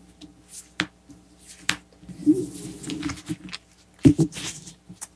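Tarot cards handled on a cloth-covered table: two sharp card clicks as cards are drawn from the fanned spread, then cards sliding and soft thumps as they are gathered and set down.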